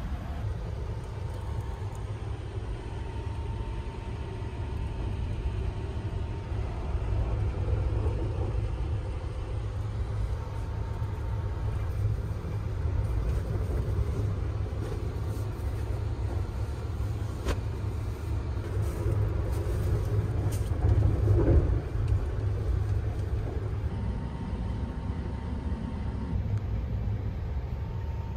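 Sunrise Express sleeper train running, heard inside the compartment as a steady low rumble, with a single sharp click and a little later a brief louder bump.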